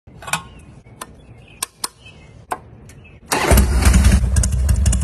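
Harley-Davidson motorcycle's V-twin engine started at the handlebar start button. A few sharp clicks come first, then the starter cranks and the engine catches about three seconds in, settling into a loud, steady idle.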